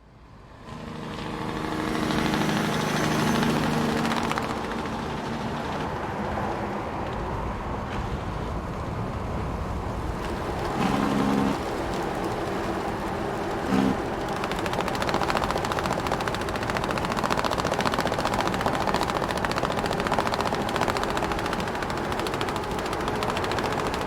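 Large truck driving with its cargo straps rattling and flapping in a dense, rapid clatter over the running of the truck. The sound fades in at the start; a short pitched sound comes about halfway through, and a briefer one a few seconds later.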